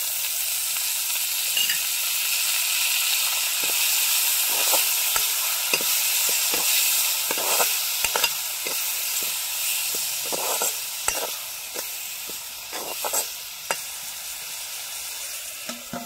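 Sliced tomatoes sizzling loudly as they hit hot oil in a metal kadai, the hiss starting suddenly as they are tipped in and easing off near the end. A metal ladle stirring them gives scattered scrapes and clinks against the pan.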